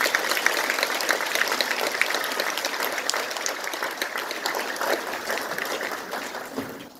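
Audience applauding: many hands clapping in a dense patter that fades out near the end.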